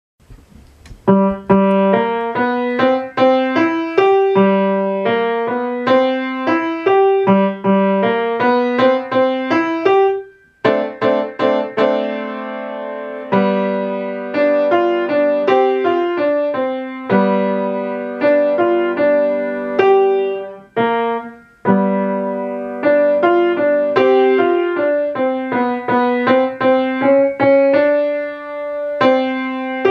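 Acoustic grand piano played solo: a boogie piece of many quick, short notes over a repeating bass, broken by a brief pause about ten seconds in and a held chord just after.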